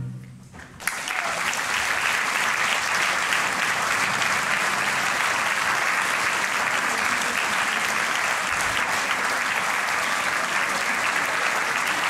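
The last chord of a brass band dies away, and after a moment's hush audience applause breaks out about a second in and goes on steadily.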